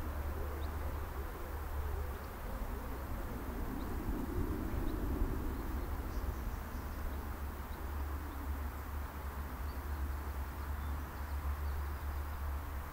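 Outdoor field ambience: wind rumbling on the microphone throughout, with a few faint, short bird chirps.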